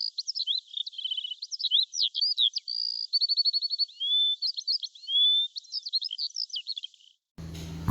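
A songbird singing a fast, varied song of chirps, rapid trills and slurred whistles, stopping about seven seconds in. Soft music starts just before the end.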